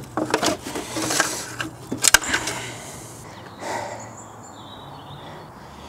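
Citroën C6's metal air-conditioning condenser being worked free and lifted out of the car's front end: rattling and scraping of metal and plastic, with one sharp clank about two seconds in, then quieter handling.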